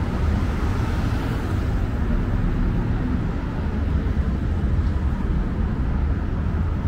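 Car traffic passing on a city street: engine and tyre noise over a steady low rumble, with one car passing close about a second in.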